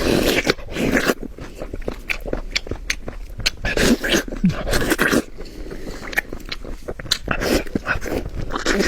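Close-up chewing and lip-smacking of someone eating braised pork knuckle, with many irregular wet clicks and smacks.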